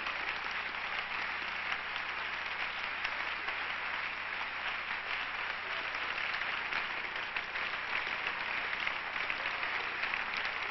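Church congregation applauding: many people clapping together in a steady, sustained wash.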